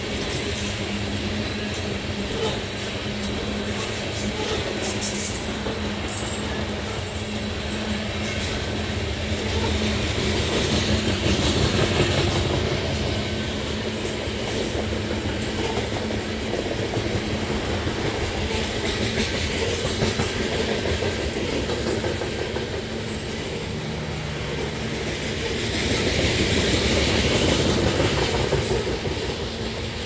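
Loaded coal train's gondola cars rolling past at close range: a continuous rumble and clatter of steel wheels on the rails. It swells louder twice, about a third of the way in and again near the end.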